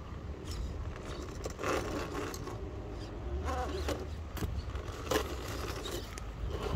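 Traxxas TRX-4 scale RC crawler working over rocks: short bursts of its electric motor and gears whirring, with tyres and chassis scraping and clicking on stone, and a sharp knock about five seconds in.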